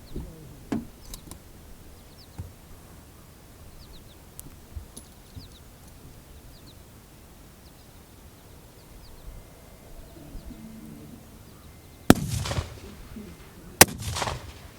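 Two rifle shots near the end, about a second and a half apart, each a sharp crack with a short rumbling tail. Before them, only a few faint clicks.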